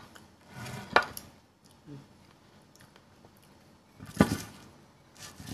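Dishes handled on a table: a sharp knock about a second in and a short, rougher clatter about four seconds in.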